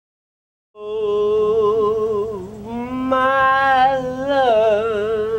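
A man singing long, slow, held notes with a wide vibrato. It comes in about a second in, out of complete silence.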